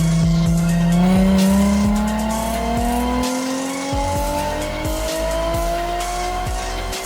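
Nissan 350Z's V6 engine on a chassis dyno. It holds steady revs, then climbs smoothly and steadily in revs through a pull, under background music with a steady beat.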